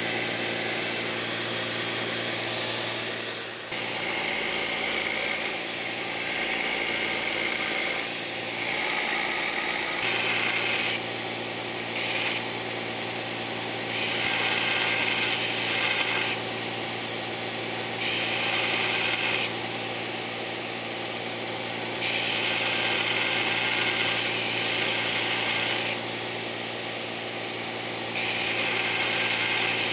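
Vertical belt sander running with a steady hum while a cast aluminium way wiper is pressed against the belt again and again, each pass of a couple of seconds adding a loud rasping sanding noise that stops when the piece is lifted off.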